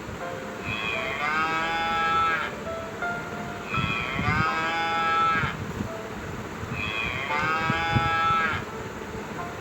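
A cow mooing three times, each moo long and drawn out, about a second and a half, with a few seconds between calls.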